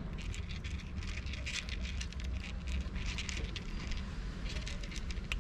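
Cats crunching dry kibble from a plastic plate: a rapid, irregular crackle of chewing over a low steady rumble.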